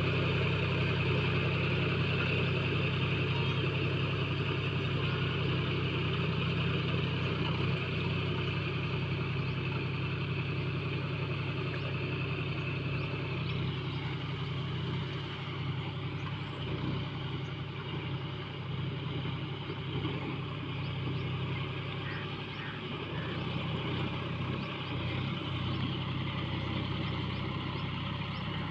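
Tractor diesel engine running steadily under load as it drives a rotavator through a flooded paddy field, growing somewhat fainter as the tractor moves away.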